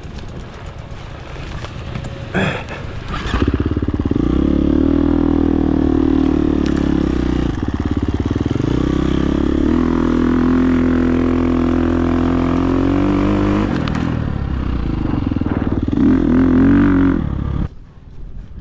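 Dirt bike engine revving hard on the throttle. The pitch drops and climbs again about eight seconds in, and the engine is shut off near the end.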